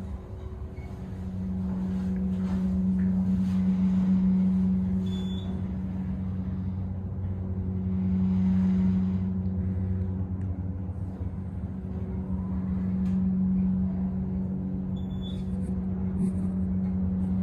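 Montgomery KONE dry-powered hydraulic elevator pump motor running under load as the car rises, a steady hum pitched at F-sharp that swells and eases in loudness a few times.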